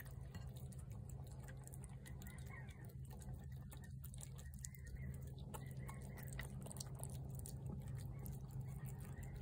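A cat eating shredded wet cat food from a plate: faint, quick wet chewing and smacking clicks, over a steady low hum.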